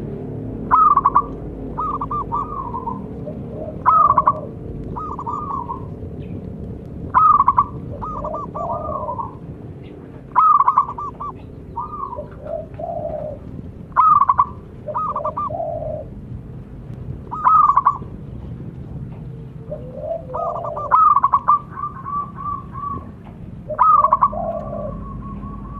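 Zebra doves (perkutut) cooing: a loud call about every three and a half seconds, each followed by a short run of rolling coos, with lower-pitched calls in between.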